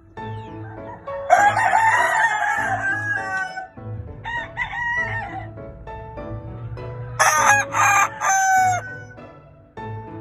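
Gamefowl roosters crowing: three loud crows in turn, the first long and drawn out, each falling in pitch at its end, over background music.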